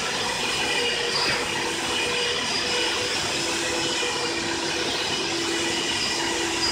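Water-filter vacuum cleaner running steadily: a constant motor whine with a few steady tones over a hiss of rushing air.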